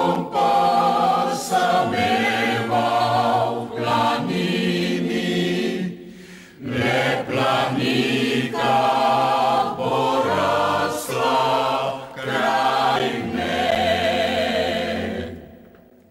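Mixed choir of men's and women's voices singing a Slovenian song, with a short break about six seconds in. The singing fades out near the end.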